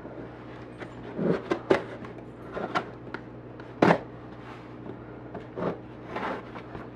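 Scissors cutting the packing tape on a cardboard shipping box: scattered snips, scrapes and knocks of blade and hands on cardboard, with one sharp click about four seconds in.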